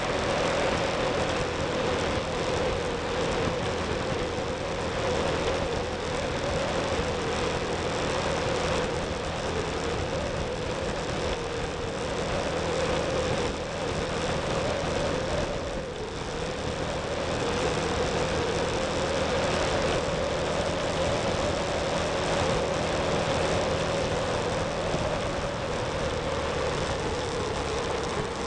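Motorcycle engine running steadily at road speed, mixed with wind and road noise; the level dips briefly about 16 seconds in.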